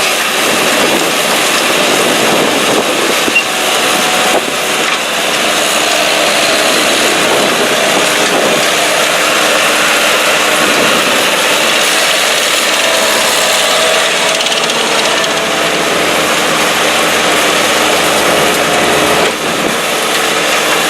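Revolver RT508 trommel screening plant running: a steady engine and machinery drone.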